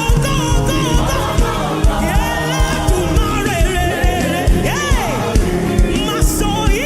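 Live gospel worship music: a choir and lead voices sing with melismatic runs over a band with a steady drum beat.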